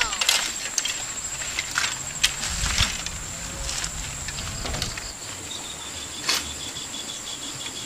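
An old steel upright bicycle clicking and rattling as it is handled and laid down in the grass. Insects keep up a steady high buzz, and a cricket starts trilling about two-thirds of the way through.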